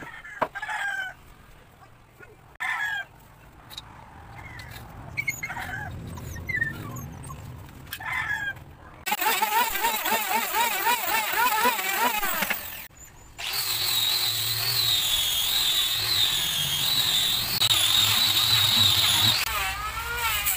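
Chickens clucking in short, scattered calls, then a handheld electric wood planer starts about nine seconds in and cuts across a hardwood board. The planer stops briefly, then runs on with a steady high whine until near the end.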